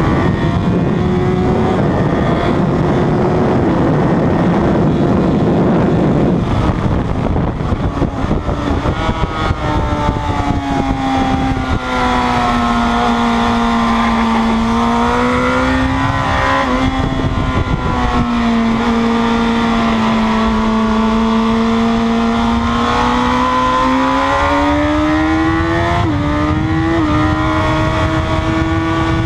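Sportbike engine at track pace, heard onboard with heavy wind noise at first; about ten seconds in the engine note drops as the bike slows for the corners, then its pitch rises, falls and climbs again as it accelerates hard, with two quick steps in pitch near the end.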